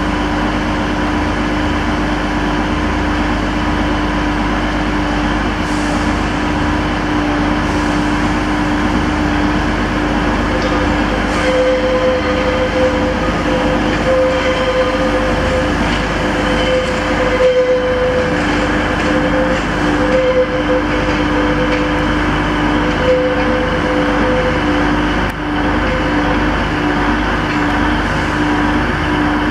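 Class 144 Pacer diesel railbus running through the station, its underfloor diesel engine giving a steady drone. A higher steady tone joins about a third of the way in and fades out near the end.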